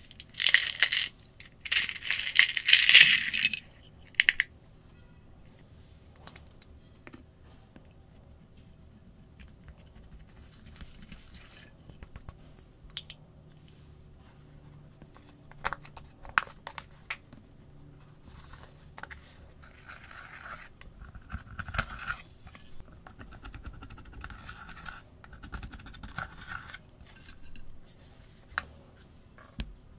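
A small hand grater rasping in short scraping strokes for the first few seconds, the loudest sound. After that, quieter handling of plastic items, with scattered clicks and taps and soft rubbing.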